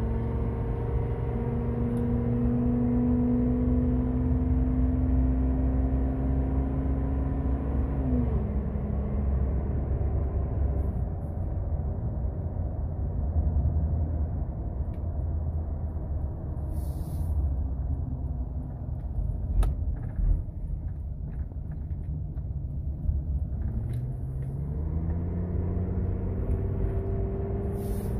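Ford 6.8 L V10 with its catalytic converters removed, heard from inside the cab with the windows up while driving. The exhaust drone holds a steady pitch near 2500 rpm, drops sharply about eight seconds in, runs lower through the middle, then rises again near the end over a steady road rumble. A single sharp knock comes a little past the middle.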